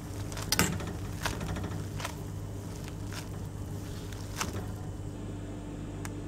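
Noodles boiling in a stainless steel pot while being stirred with a spoon: about half a dozen short knocks and scrapes of the spoon against the pot, the loudest about half a second in, over a steady low hum.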